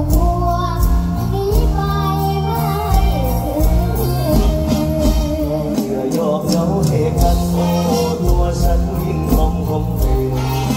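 Live mor lam band music with singing: a girl and a man sing over the band, with a steady drum beat and sustained bass.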